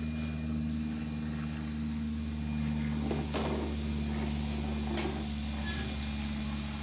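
A stationary train's engine idling steadily with a low, even hum. There are a couple of short knocks, about three and five seconds in.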